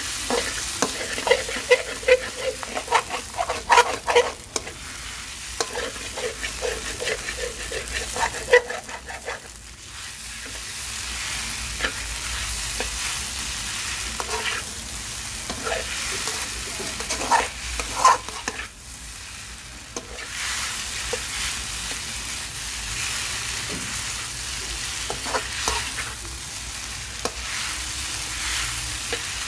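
Wide rice noodles and egg sizzling in a hot wok while a spatula scrapes and knocks against the pan. Quick clattering strokes crowd the first several seconds, then give way to a steadier sizzle with occasional scrapes and a short lull in the middle.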